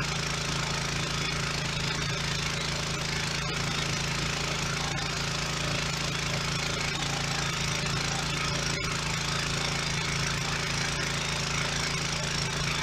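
Home-built pressure washer running steadily, a constant hum under the hiss of high-pressure water spraying onto a concrete sidewalk.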